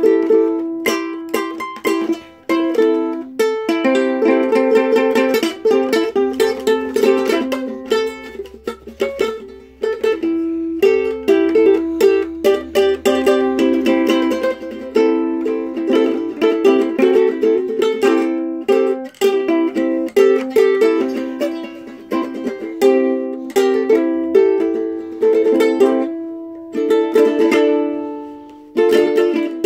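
Ukulele played solo: a quick, continuous run of plucked and strummed notes and chords, with a few short breaks between phrases.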